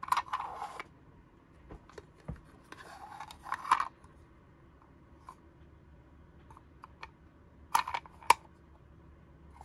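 Plastic coffin-shaped toy being handled: two short scraping slides, then two sharp plastic clicks near the end.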